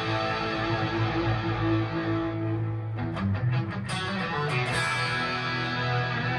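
Electric guitar played through a Marshall JCM800 2203 amp with distortion and effects, holding sustained notes. A few sharp clicks come about three to five seconds in.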